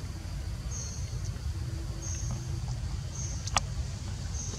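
An insect calling in short, high, evenly spaced buzzes, a little more than one a second, over a steady low rumble. A single sharp click comes about three and a half seconds in.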